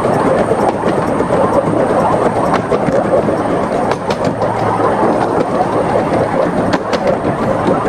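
A 15-inch gauge Krupp 4-6-2 Pacific steam locomotive running, heard from the driver's position: a steady, loud rush of the engine and wheels on the track, with a few sharp clicks.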